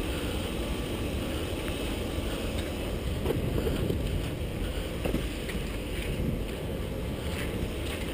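Wind rumbling on a body-worn action camera's microphone as the wearer moves on foot, with a few faint knocks of footsteps or gear about three to five seconds in.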